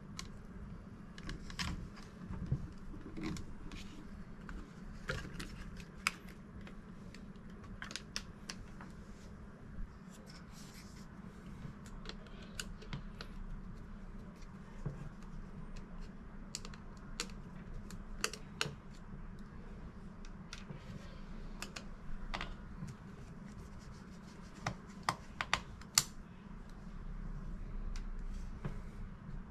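Scattered small clicks and scrapes of hand tools working on the inside of an opened MacBook Pro, over a steady low hum.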